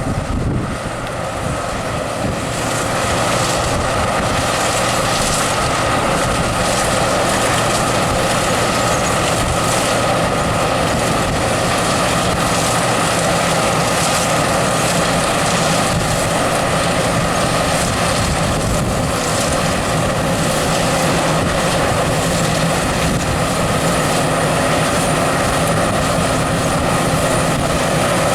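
John Deere STS combine harvester working a ryegrass seed crop: a steady drone of engine and threshing machinery with a faint high whine, growing louder over the first few seconds and then holding level.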